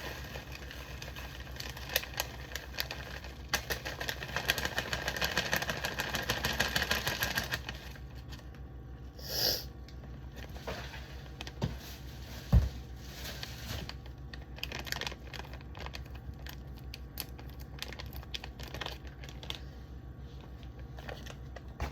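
Plastic packaging of mozzarella cheese crinkling as it is handled: a dense, rapid crackle for the first several seconds, then scattered crinkles and clicks, with a single sharp knock about twelve seconds in.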